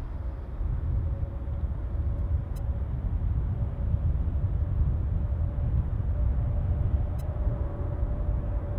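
Jet engines of a twin rear-engined regional jet at takeoff thrust: a low rumble with a steady whine running through it, buffeted by gusty wind on the microphone.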